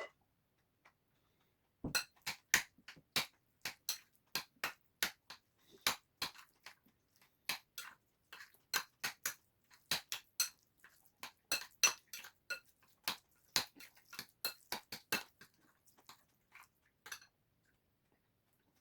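Spoon clinking and scraping against a dish while eating curry and kimchi, a quick run of sharp clicks played back at double speed. The clicking stops shortly before the end.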